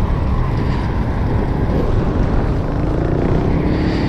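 Steady vehicle engine and road noise with wind on the microphone; about three seconds in, an engine tone rises slightly in pitch.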